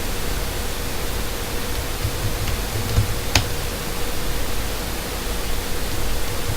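Steady hiss of room and recording noise with a faint steady hum, and two short clicks about three seconds in.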